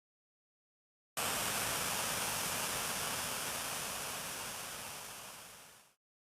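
A loud, even hiss of static-like noise starts abruptly about a second in, fades slowly over about five seconds and cuts out.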